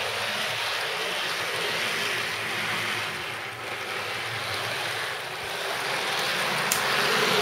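OO gauge model train running on its track: a steady whirr of the motor and wheels on the rails, growing louder near the end, with one brief click.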